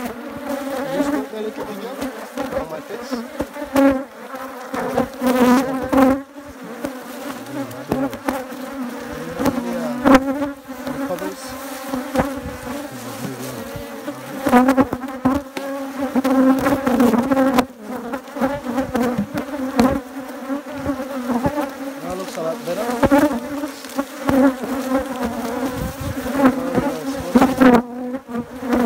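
Honeybees buzzing around an opened wooden hive, flying close past the microphone so the hum swells and fades in pitch and loudness. A few knocks are heard along with it.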